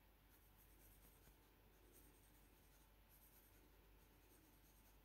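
Faint scratching of a pencil shading on sketch-pad paper, coming and going with the strokes.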